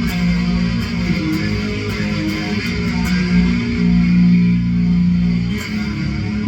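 Electric guitar played loud through an amp with an overdrive pedal stacked on a distortion pedal, giving a heavy, dirty tone. Low notes ring out in turn, with one held for about a second and a half near the middle.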